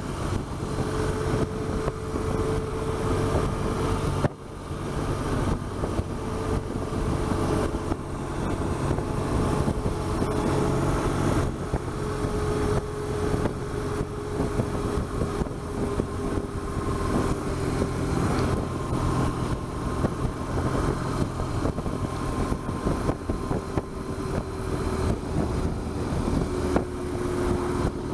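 BMW R1200GS flat-twin engine running steadily while riding at road speed, mixed with wind and road noise on a bike-mounted camera. The sound drops briefly about four seconds in.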